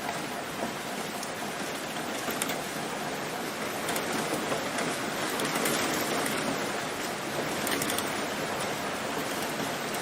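Steady rain falling on plant leaves, a dense hiss with scattered individual drop taps, swelling slightly about halfway through.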